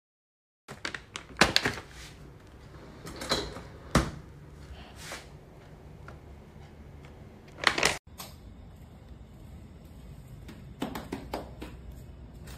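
Clear plastic packaging of dried ostrich tendon dog chews crinkling and rustling as it is handled, in several separate rustles, the loudest about a second and a half in, around four seconds in and near eight seconds, over a steady low hum.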